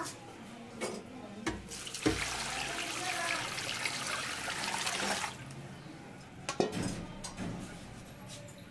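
A stream of water running into a metal pot of cut fish pieces to rinse them. It starts about a second and a half in and stops after about four seconds. A couple of short knocks follow.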